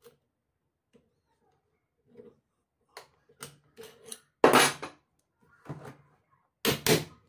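Metal parts of a homemade pistol clicking and clacking as the lock is worked into its scrap-pipe receiver with pliers: several light clicks, then a loud ringing metal clack about four and a half seconds in and two more near the end.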